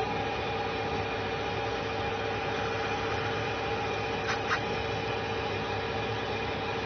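Emco Super 11 metal lathe running at a steady speed, its spindle and gear drive giving an even whine of several tones while it turns a rubber part frozen with liquid nitrogen. Two quick ticks come about four and a half seconds in.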